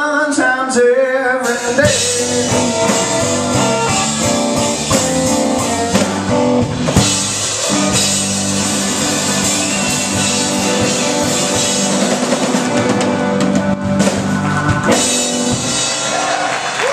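Live blues band with electric guitar and drum kit. Bending guitar lines come first, then from about two seconds in a long held closing chord with cymbals washing over it, as the song ends.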